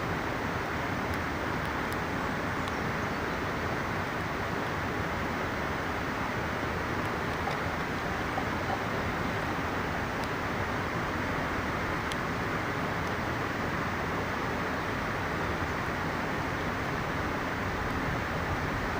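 Mountain river rushing steadily over rocks, with a few faint crackles from a small wood campfire.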